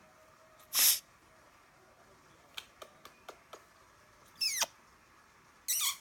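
Green-winged macaw making short close-up sounds: a loud breathy huff just before a second in, a few soft clicks, a quick falling squeak around the middle, and a short raspy squawk near the end.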